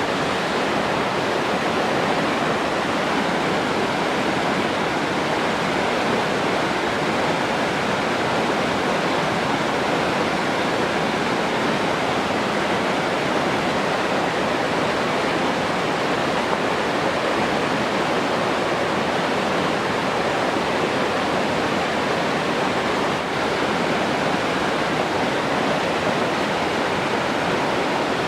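Rushing water, a steady, unbroken hiss that does not change.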